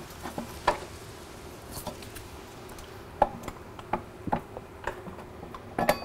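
Irregular metallic clicks and knocks of a motorcycle's rear-wheel parts being handled and fitted by hand, with a few sharper knocks, the loudest about three seconds in and just before the end.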